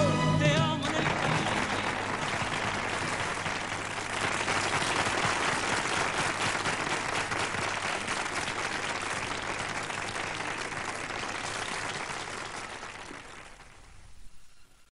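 Audience applauding at the close of a live song, the last held note of the singing and band ending within the first second; the applause dies away near the end.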